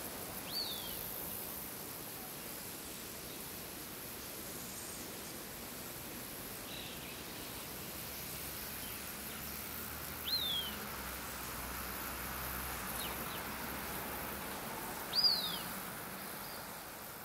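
Open-field ambience: a steady soft hiss, with a bird's short, high whistle sliding downward a few times, the clearest about ten seconds in and the loudest about fifteen seconds in.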